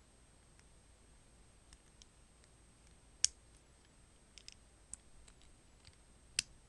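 Plastic Lego bricks clicking as they are handled and pressed together: scattered small clicks, with two sharper ones about three seconds in and near the end.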